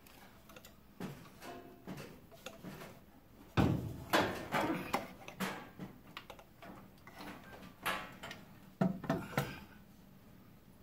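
Irregular knocks, clicks and clunks of metal parts being handled as an aluminium intake manifold is set back onto an LS V8 engine. The clatter is loudest in a cluster about four seconds in, with another burst near nine seconds.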